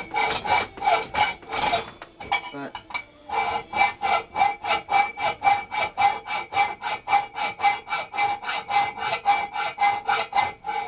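Hacksaw cutting a piece clamped in a bench vise, with quick, even back-and-forth strokes, about four a second. A steady ringing note runs under the strokes. The sawing stops briefly about two seconds in, then goes on steadily.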